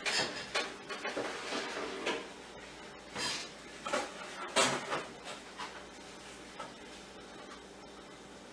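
Hand-handling of rough twine while tying macrame knots: irregular rasping and rustling strokes as the strands are pulled and rubbed through the fingers, busiest in the first few seconds and sparser after.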